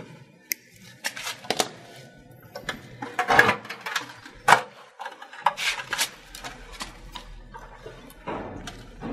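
Irregular rustles and knocks of hands at work, as a pig's trotters are bound to a bamboo spit with string, over faint background music.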